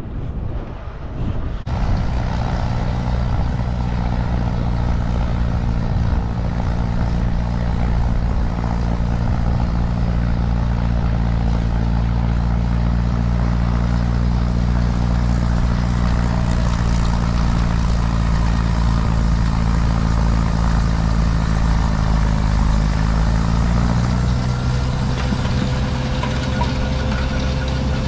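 Case 830 tractor engine running steadily under load while it drives a snowblower through drifted snow, its note rising slightly about 23 seconds in. The opening moment is wind on the microphone.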